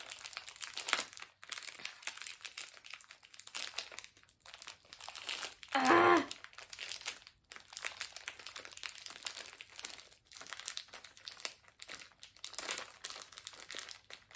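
Plastic biscuit wrapper crinkling and rustling in short bursts as hands struggle to tear it open. About six seconds in there is a short vocal sound, the loudest moment.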